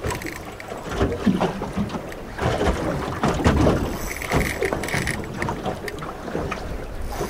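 Wind buffeting the microphone over choppy sea slapping against a small aluminium boat's hull, coming in uneven surges.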